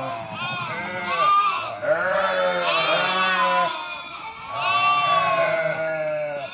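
A large flock of sheep bleating, many calls overlapping continuously, with a short lull midway.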